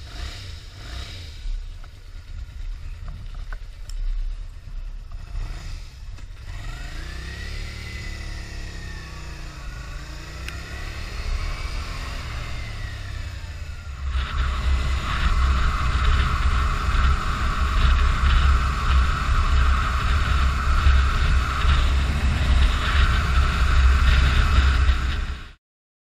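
Motorcycle engine running at low revs, then rising and falling in pitch as it pulls away, then running louder and steadily on the move. It cuts off suddenly near the end.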